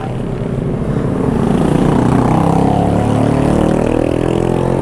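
A motor vehicle passing on the street, its engine note swelling over the first couple of seconds and sliding in pitch as it goes by.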